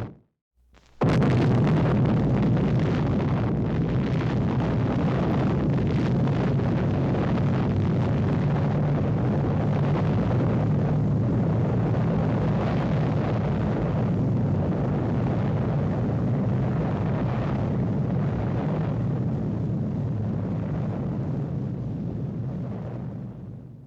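Explosion sound effect: a long, steady rumble that starts about a second in, holds for some twenty seconds and fades out near the end.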